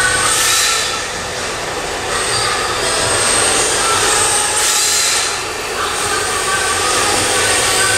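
MST RRX-D rear-wheel-drive electric RC drift car running on the track, its motor whining at a pitch that rises and falls with the throttle. Two short rushes of tyre scrub come as it slides, about half a second in and again near five seconds.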